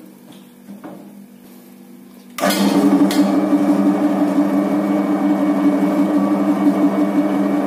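Electric motor of a stainless-steel meatball dough mixer-chopper switched on about two and a half seconds in, then running steadily with a hum, on a test run with the bowl empty. Before it starts there are a few faint clicks from handling the blade shaft.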